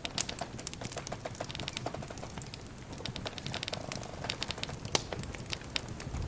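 Wood campfire crackling: irregular sharp snaps and pops of burning wood over a low rumble of the flames, with two quick runs of tiny crackles and a louder pop near the start and another about five seconds in.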